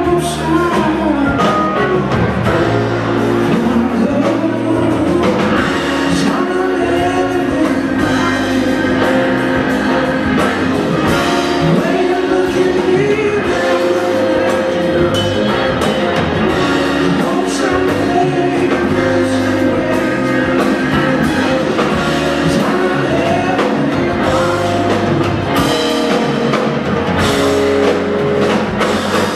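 Live rock band playing: electric guitar, drum kit and bass guitar together.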